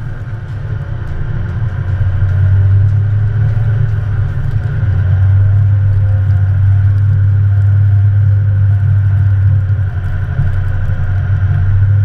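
LML Duramax 6.6-litre turbo-diesel V8 pickup running under load while its plow pushes through deep snow: a steady low drone that grows louder about two seconds in and then holds.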